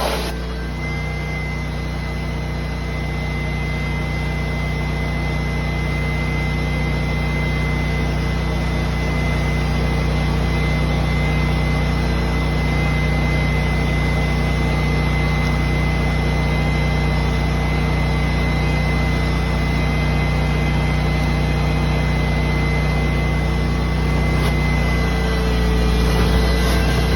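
Ditch Witch vacuum excavator running steadily, its engine and vacuum blower giving a continuous drone under a thin high whine that drops out near the end.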